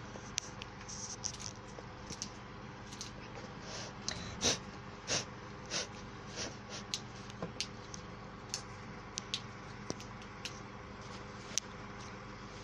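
Irregular short rustles, snaps and clicks of long-stemmed white roses being handled as they are cleaned, with the outer petals pulled off by hand. Two louder rustles come about four and five seconds in, over a faint steady hum.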